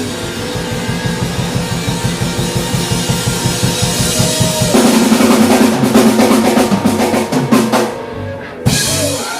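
Live blues band of electric guitars, bass and drum kit playing the closing bars of a slow blues: a fast drum roll builds in volume, then about halfway the band comes in with loud, ringing held chords and cymbal crashes, ending on a final hit just before the end.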